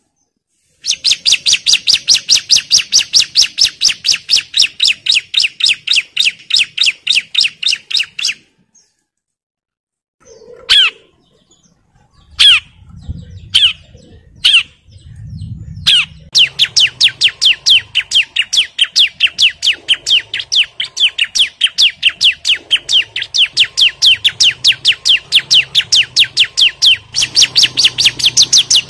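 Bar-winged prinia (ciblek) in fired-up song: long runs of rapid, sharp repeated notes, about eight a second. In the middle the run breaks off for a few seconds of scattered single calls, then starts again.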